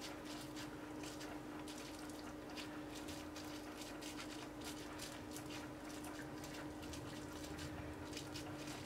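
Rubber-gloved hands pressing and rubbing plastic bubble wrap onto the surface of freshly poured soap, giving many small, irregular crackles and rustles. A steady low hum runs underneath.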